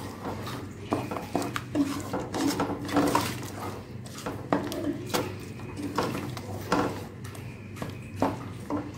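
Wooden spatula stirring thick vegetable curry in a metal pressure cooker, knocking and scraping against the pot in irregular clicks, a few each second.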